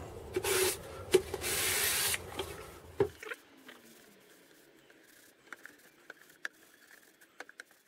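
Hand sanding of oiled oak with fine 400-grit sandpaper: a few short rubbing strokes, then about three seconds in the sound drops away to faint, scattered ticks as the oil is buffed in with a cloth.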